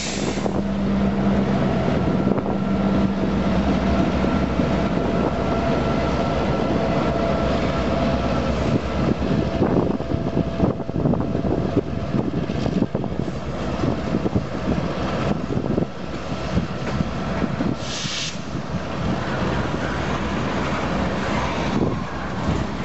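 Two diesel freight locomotives pass close by with their engines drumming. Their sound gives way after a few seconds to the steady rumble and clatter of freight cars rolling past on the rails. A short hiss comes about eighteen seconds in.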